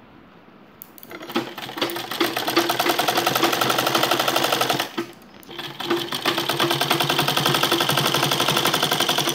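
Domestic sewing machine stitching through cloth, topstitching a folded fabric strip with a fast, even run of stitches. It starts about a second in, stops briefly near the middle, then stitches again.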